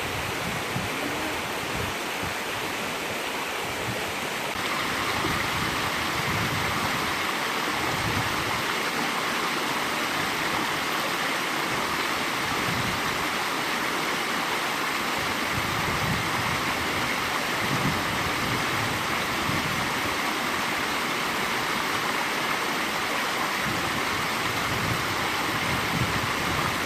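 Latourell Falls, a tall plunge waterfall, giving a steady rush of falling water. The rush grows slightly brighter about four or five seconds in.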